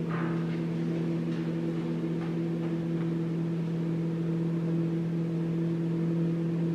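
Steady electrical machine hum, one low tone with a clear higher overtone, holding an even level throughout.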